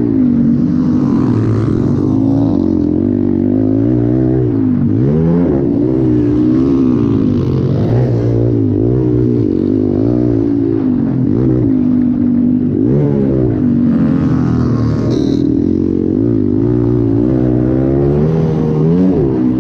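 Motocross bike engine heard from the onboard camera, running hard with its pitch rising and falling over and over as the throttle is opened and closed through the track's turns and straights.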